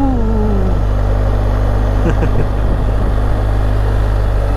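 Motorcycle running steadily while being ridden, a continuous low rumble.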